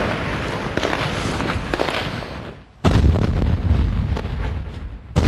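Battle sounds: a rapid, irregular crackle of gunshots over a rough noise, fading out just under three seconds in. Then, after an abrupt cut, a loud deep rumble with more shots.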